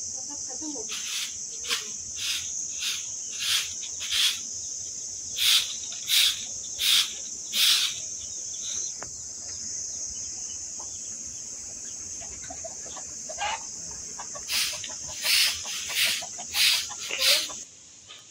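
Grass broom sweeping a concrete courtyard in short swishing strokes, about one every half second or so, in two runs with a pause in between. A steady high-pitched insect drone runs underneath.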